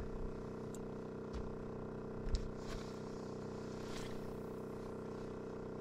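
Small boat's motor running steadily with an even hum. A few faint clicks, and one light knock a little over two seconds in.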